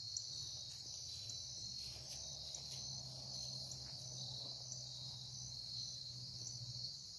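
Crickets chirring in a steady chorus, with a regularly repeating pulsed call over it.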